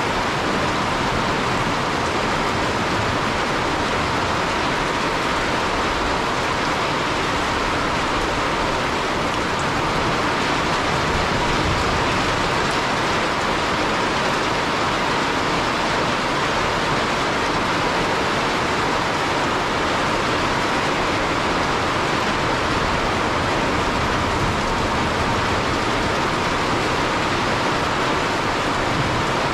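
Steady rain falling, an even hiss that neither builds nor breaks.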